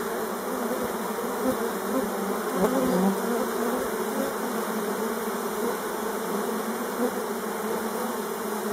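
Many honeybees buzzing steadily as they crawl over a rock and fly around it close to the microphone.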